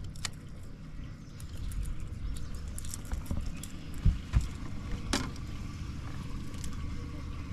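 Knocks and clicks of gear being handled in a small fishing boat over a low rumble, with two heavy thumps against the hull about four seconds in.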